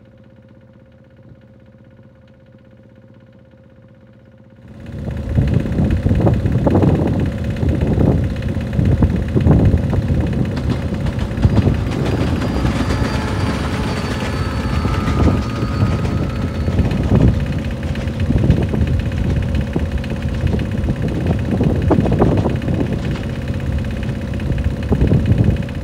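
Loud, irregular wind buffeting on the microphone, a gusting rumble that starts suddenly about five seconds in. Before that, a quieter steady hum from the motor of a moving boat.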